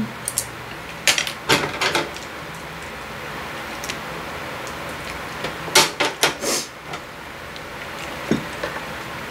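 Kitchen scissors snipping at braised pork and kimchi in a steel pan: two clusters of sharp clicks, about a second in and again past the middle, with a single knock near the end.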